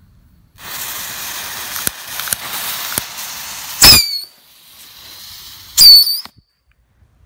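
Babypijl Fluit whistling mini stick rockets going off. A steady hiss runs for about three seconds while they are lit. Then come two short, loud, high whistles about two seconds apart, each dropping in pitch and bending back up as a rocket launches.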